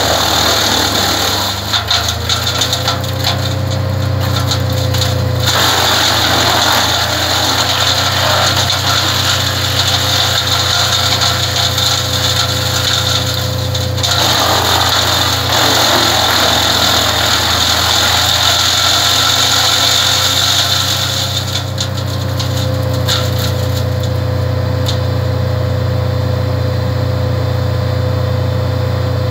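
Vermeer BC200 disc wood chipper chewing through hand-fed branches, its engine running steadily under the noise of the chipping. About twenty-two seconds in the chipping noise drops away and the machine runs on with no wood in it.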